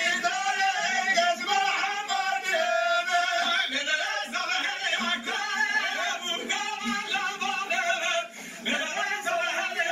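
A man singing a Kurdish halay folk song unaccompanied, in long held notes that waver, with a short break about eight seconds in.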